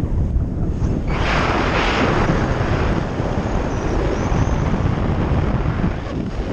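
Wind rushing over the microphone of a paraglider pilot's camera in flight, a rough, steady rush that grows louder about a second in.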